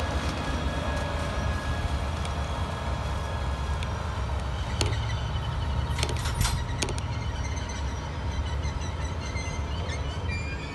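Amtrak Pacific Surfliner train pulling away, its Siemens SC-44 Charger diesel locomotive pushing at the rear with a steady low engine rumble. A few sharp wheel clicks over the rails come about five seconds in and again a second or two later.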